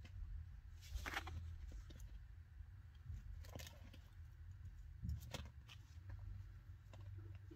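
Faint, scattered clicks and rustles, a few of them over a low steady hum: a baby chinchilla nosing among a string of wooden chew toys, jostling the blocks.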